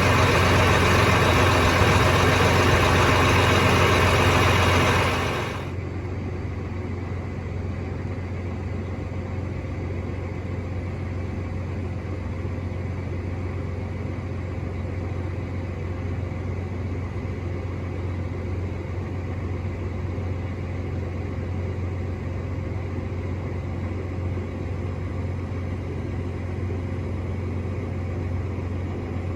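Tractor engine running steadily with a low hum, heard from inside the cab. For the first five seconds a loud rushing noise sits over it, then cuts off suddenly, leaving the quieter engine hum.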